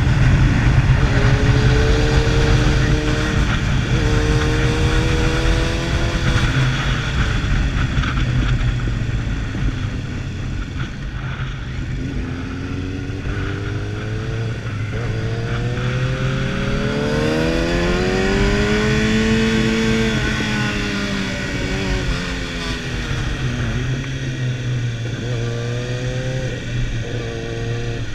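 Sport motorcycle engine heard from on the bike, under a steady rush of wind. The engine note rises and falls again and again as the throttle opens and closes through the bends, with one long climb and drop in pitch about two-thirds of the way through.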